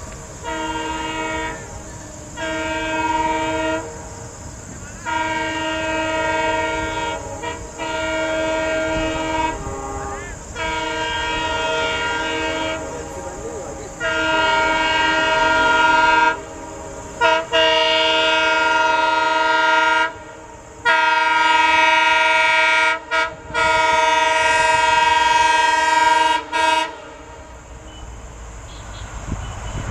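WDP-4D (EMD GT46PAC) diesel locomotive's horn honking in a long run of repeated blasts, some short and some held for several seconds, growing louder as the train approaches at speed. The horn is sounded as a warning at a level crossing.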